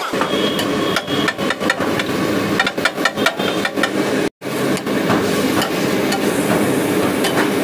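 Flat metal spatula striking and scraping a large iron tawa griddle, chopping and mashing onion, tomato and masala: irregular sharp clinks over a steady hiss. The sound drops out for a moment about four seconds in.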